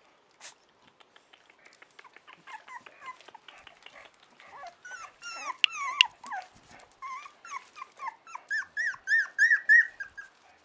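Four-week-old chow chow puppies whimpering and squeaking, thin high cries overlapping from several pups. The calls grow busier from about two seconds in, and near the end one pup gives a quick run of rising-and-falling squeals, about four a second.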